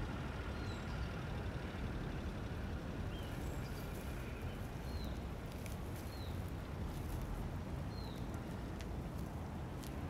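Short, falling bird chirps every second or two over a steady low rumble.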